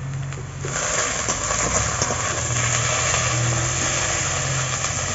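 Onion, garlic, ginger and green chillies frying in oil in a large wok over a wood fire: a steady sizzle that swells up about a second in. A low hum runs underneath.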